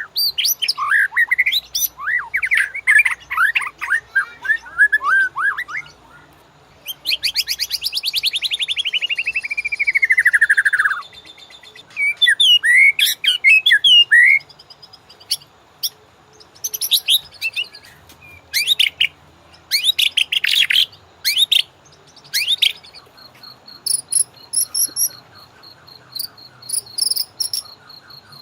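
White-rumped shama (murai batu) singing: loud, varied phrases of whistles, quick chattering trills and a long falling buzzy trill, separated by short pauses. Near the end a fast, high, insect-like chirring joins in.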